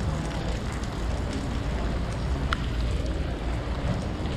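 Outdoor street ambience with a steady low rumble, from wind on the microphone or passing traffic, and faint distant voices, with a short high squeak about halfway through.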